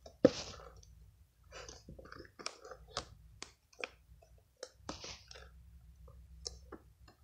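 Slime being squished and poked by hand, giving irregular wet clicks and squelches, the loudest a moment after the start.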